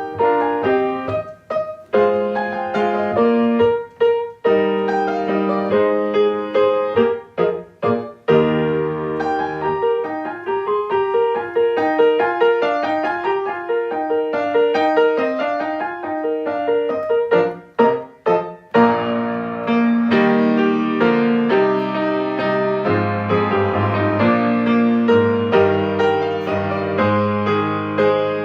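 Solo piano playing a slow, classical-style piece. About two-thirds of the way through it briefly pauses and then comes back fuller and louder, with lower chords added.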